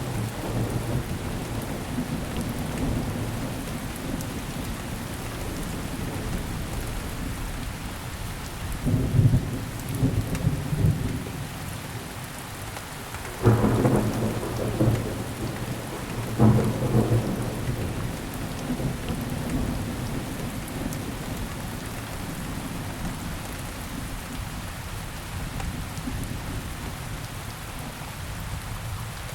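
Steady rain falling on surfaces, with low rolls of thunder that break in suddenly three times in the middle and die away over a second or two.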